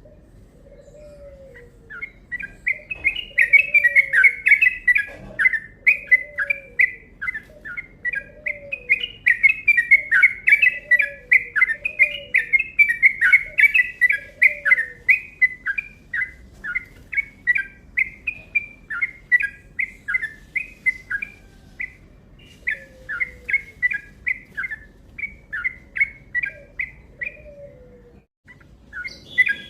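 Yellow-vented bulbul (trucuk) singing a long, fast run of chattering notes, starting about two seconds in and breaking off briefly near the end. A fainter low note repeats about once a second underneath.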